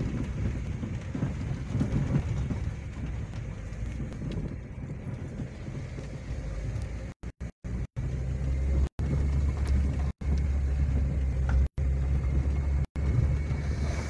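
Car driving over a rough dirt track, heard from inside the cabin: a steady low engine and road rumble that grows heavier about halfway through. The sound cuts out completely for brief moments several times in the second half.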